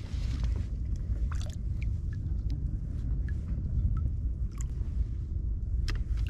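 Steady low rumble of wind and sea water around a sit-on-top kayak at sea, with scattered small clicks and taps throughout.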